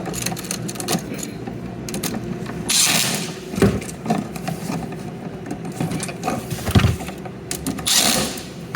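Screwdriver work on a GFCI receptacle's load-side terminals: small clicks and ratchet-like ticks as the wires are pushed in and the terminal screws tightened, with a few handling knocks and two longer scraping rustles, about three seconds in and near the end.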